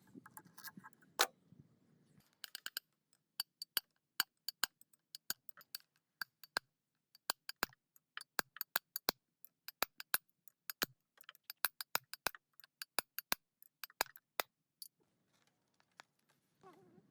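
A run of sharp, irregular clicks and light taps, a few a second, like hand tools or small metal parts knocking against metal, with one louder knock about a second in.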